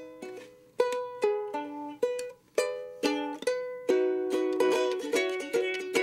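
Ukulele strummed and picked in a short tune. Single chords are struck and left to ring out, coming closer together in the second half.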